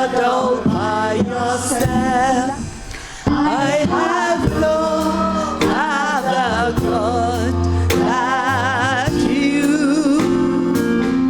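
Live gospel music: a lead singer with strong vibrato over a band with electric guitar and bass.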